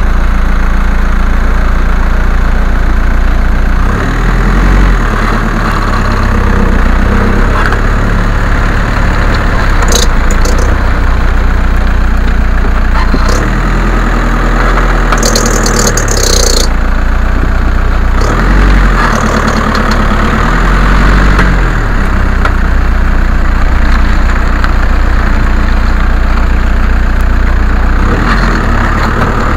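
VW Golf Mk4 TDI driving, its four-cylinder turbodiesel engine and road noise loud throughout, the engine pitch rising and falling several times as it accelerates and changes gear. A few short sharp noises cut in around the middle.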